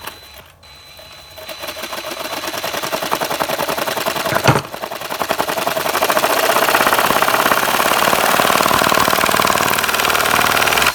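Motorised Lego chainsaw running, its Lego chain clattering in a fast, dense rattle as it cuts into styrofoam. It builds up over the first couple of seconds, gives one sharp knock about four and a half seconds in, then runs steady and loud until it cuts off suddenly.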